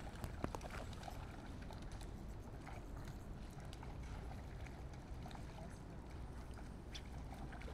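Outdoor background: a steady low rumble, with a few faint light clicks and faint snatches of distant sound.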